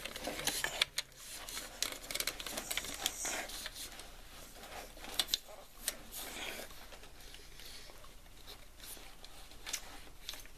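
Scattered clicks, knocks and rustling from a Targus camcorder tripod being handled as its legs and column are extended and locked.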